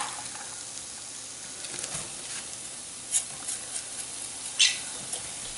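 Diced onion and garlic sizzling steadily in olive oil in a nonstick frying pan, with a few short scrapes or taps of a plastic spatula, the loudest about three-quarters of the way through.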